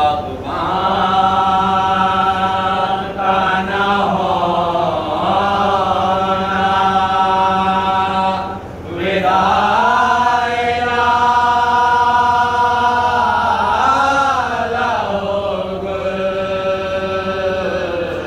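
A group of men chanting a Shia mourning elegy without instruments: a lead reciter with several men joining him on long, held notes. They break off briefly about halfway through, then take up the next line.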